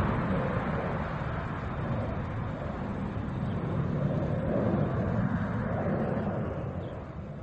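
The CFM56 jet engines of a landing Boeing 737-300, a steady rumble during the touchdown and roll-out that swells again about four seconds in as reverse thrust is applied, then eases off near the end.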